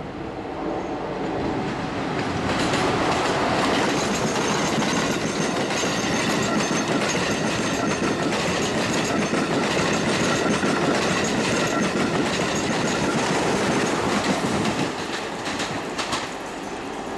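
A train passing at speed, its wheels running over the rails. The sound builds over the first couple of seconds, stays loud, and falls away about fifteen seconds in.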